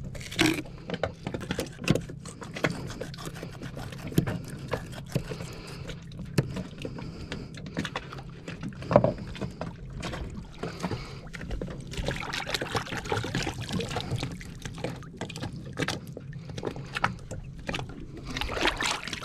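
Fillet knife scraping and knocking as a sculpin is cut on a boat's deck, with water lapping against the hull under a steady low hum. Near the end comes a splashing swish as hands rinse the fillet in the sea.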